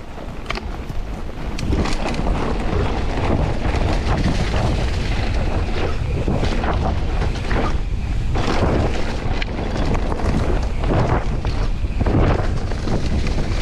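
Wind buffeting the microphone of a mountain bike's camera at riding speed, with the bike rumbling and rattling over rough trail and a steady run of knocks from bumps.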